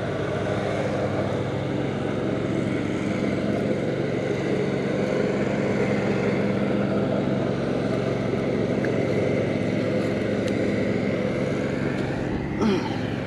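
A steady mechanical drone, like an engine or motor running without change, with a low hum of even tones; a brief short sound breaks in near the end.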